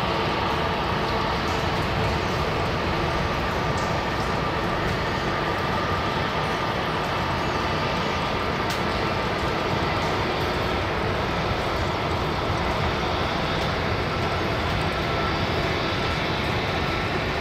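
Airbus A320neo jet engines running at taxi power, a steady rush of noise with a faint steady whine.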